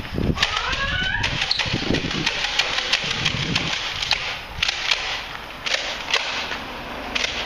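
Irregular sharp clicks and knocks throughout, with a few shrill rising cries from voices in the first second or so.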